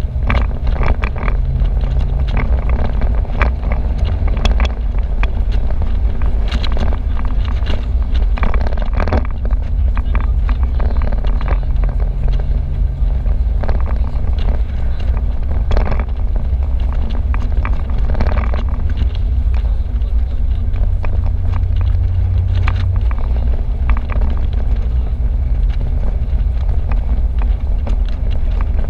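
Wind rumbling and buffeting on the microphone in an open-top convertible at road speed, over the steady hum of the car's engine and tyre noise.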